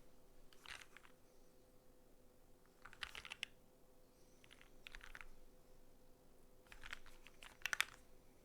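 Typing on a Neo65 custom mechanical keyboard with lubed Vertex V1 switches, a POM plate and GMK Rudy R2 keycaps. The keystrokes come in four short bursts with pauses between them.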